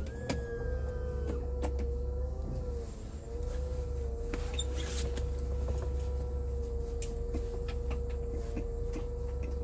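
Cabin noise of a Workhorse motorhome with an 8.1 L Vortec V8 cruising at light load: a steady low engine and road drone under a steady whine, with scattered small rattles and clicks.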